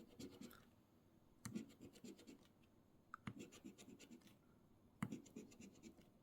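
A coin scratching the coating off an instant lottery scratch ticket: four faint, short bouts of quick rubbing strokes.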